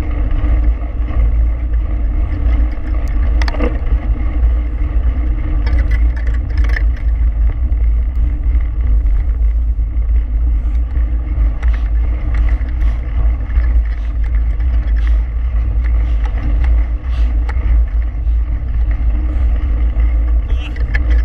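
Steady low wind rumble on a handlebar-mounted action camera's microphone as a mountain bike rolls fast over a gravel track, with scattered clicks and rattles from the tyres and bike.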